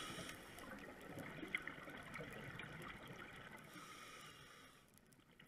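Faint underwater noise from a diver's camera: a watery hiss with scattered clicks, fading steadily toward the end.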